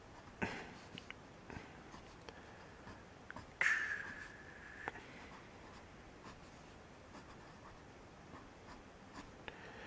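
Erasable colored pencil sketching on paper: faint scratchy strokes, a few short ones early and one longer stroke about three and a half seconds in that ends in a small click.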